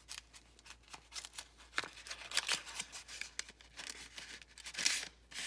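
Hands handling and unwrapping craft supplies and their packaging: a run of sharp clicks and short, crinkly plastic or paper rustles, loudest about halfway through and again near the end.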